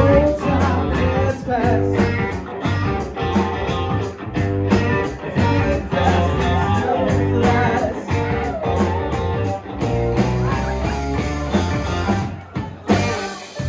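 Live rock band playing: drums keeping a steady beat under bass, guitar and keyboards, with a lead line that bends in pitch.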